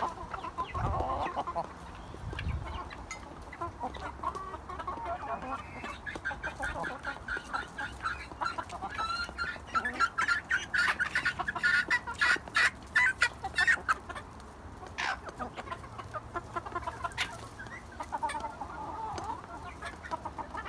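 Hens clucking while eating rice from a stainless steel bowl, with quick clicks of beaks pecking against the metal, thickest through the middle of the stretch.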